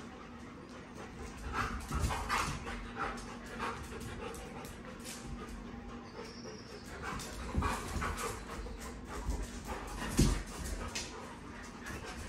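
Dog panting, with scattered soft knocks and thumps, the loudest about ten seconds in.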